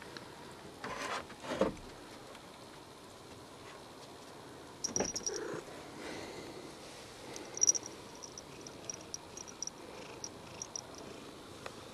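A cat purring at close range, with two short rustles about a second in and a run of faint high ticks in the second half.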